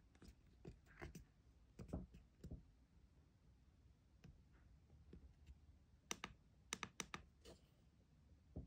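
Faint, scattered clicks and taps from fingers handling a handheld digital microscope and turning its focus ring to bring the image into focus, with a quick run of several clicks about six to seven seconds in.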